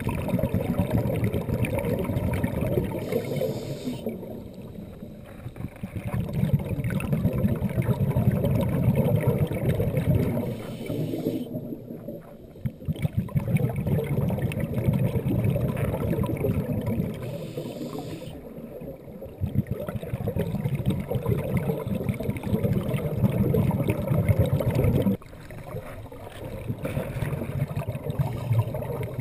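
Muffled underwater bubbling of a scuba diver's exhaled breath, heard through the camera's waterproof housing. It comes in bursts of several seconds, with short quieter gaps between breaths.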